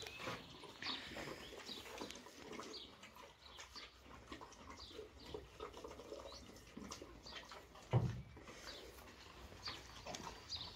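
Quiet stable sounds: small birds chirping now and then, with scattered soft clicks and rustles from a horse eating out of a plastic feed tub. One dull thump about eight seconds in stands out above the rest.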